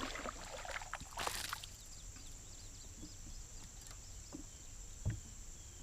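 Steady high-pitched insect trilling, with a few faint chirps. A brief hissing rush comes about a second in and a dull knock near the end.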